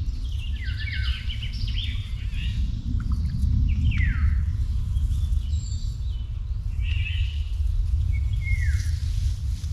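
Several wild birds singing, with short chirps and quick descending whistled phrases overlapping through the whole stretch, over a steady low rumble.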